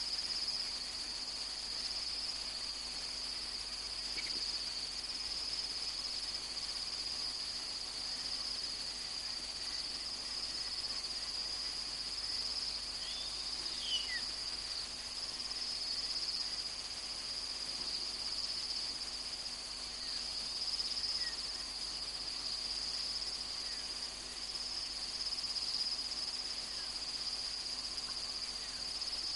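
Steady, high-pitched chorus of crickets, continuous and unbroken, with a faint short chirp about halfway through.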